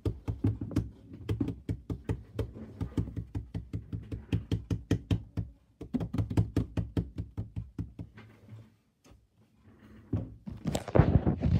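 Rapid, even knocking close to the microphone, about five knocks a second for some eight seconds, with a short break about six seconds in. A burst of rubbing, handling noise follows near the end.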